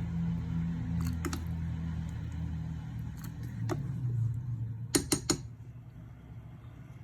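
Light metallic clinks and taps of kitchenware over a low steady hum, with three quick sharp clicks about five seconds in, after which the hum drops away.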